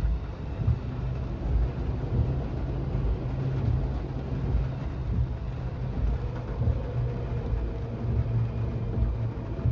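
Low rumble inside a car's cabin in the rain, with the windshield wipers sweeping and the level swelling about once a second.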